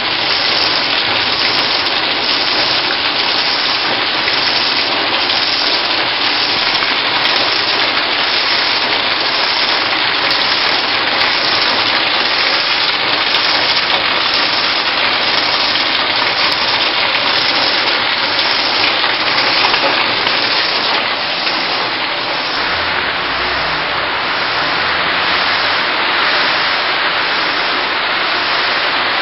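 Heavy downpour: steady rain beating on the ground, with runoff pouring off the roof edge and splashing into puddles.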